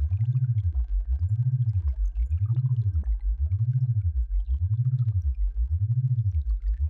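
Synthesized sound-therapy tone: a low pure tone glides up and down, repeating about once a second, over a faint steady high tone.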